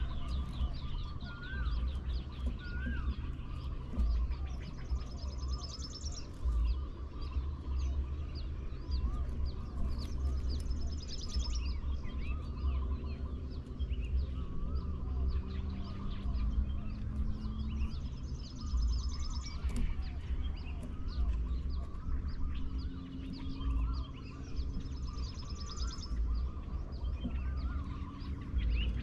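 Wild birds chirping and calling, with a rapid high trill repeating every six to eight seconds, over a low, gusting wind rumble on the microphone.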